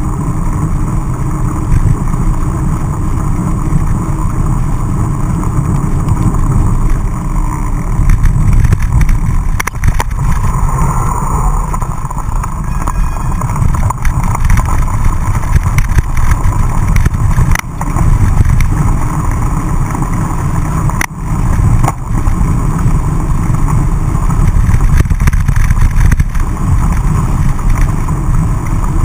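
Wind noise buffeting an action camera's microphone while a mountain bike is ridden along a dirt road, with tyre rumble and a few sharp knocks from bumps.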